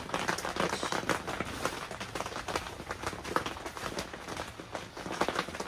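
Rain pattering on the fabric of a clear tent: a dense, irregular patter of small sharp drop ticks.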